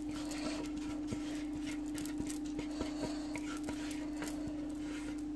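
Couscous grains pouring from a dish into an aluminium couscoussier steamer basket, making faint scattered light ticks, over a steady low hum.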